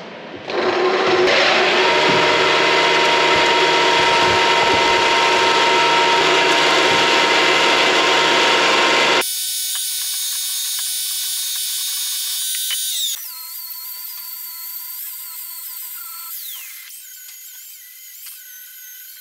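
Angle grinder spinning up and grinding steel steadily, stopping abruptly about nine seconds in. A quieter high whine follows, falling in pitch in steps as the disc winds down.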